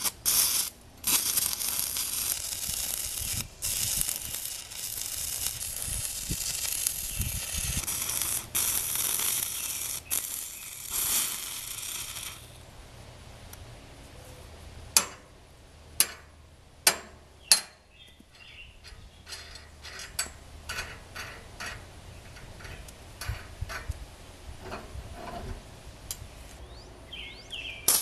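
Stick (arc) welding: the electrode arc crackles and hisses steadily for about twelve seconds, then stops. After that come several sharp metal taps and lighter clicks, and a new arc strikes right at the end.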